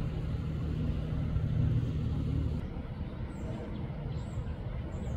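A motor vehicle passing: a low engine hum and rumble that swells about a second and a half in, then fades.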